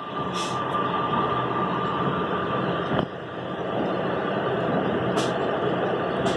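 An engine running steadily, with a thin, steady high whine above its rumble.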